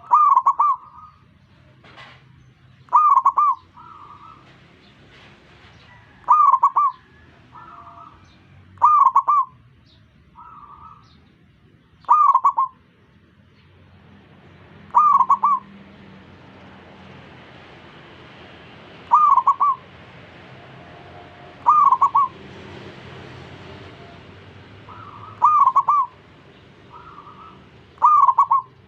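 Zebra doves cooing: one bird repeats a loud, rolling coo phrase about every three seconds, and fainter coos from other zebra doves answer in the gaps between.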